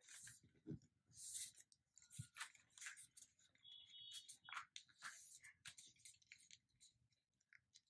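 Faint, irregular rustling and crinkling of a sheet of paper being folded and creased by hand into a paper aeroplane.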